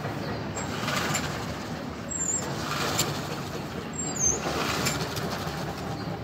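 Walk-behind lawnmower being pull-started again and again without the engine catching: repeated rasping pulls of the recoil starter over a low rumble.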